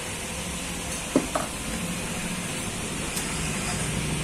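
A butcher's cleaver chopping chicken on a wooden block: two quick knocks about a second in. Under it, a vehicle engine runs with a steady low hum that grows a little louder near the end.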